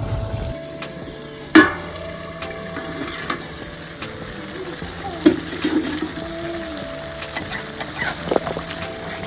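Food frying in oil in a pan, sizzling steadily while it is stirred, with a sharp utensil knock about one and a half seconds in and a few lighter clinks later.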